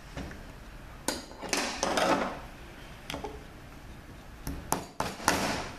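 Sharp metal clicks and clinks as a steel snap ring is worked into its groove in a 62TE transmission's input clutch drum and the snap ring pliers are put down, with two longer scraping clatters.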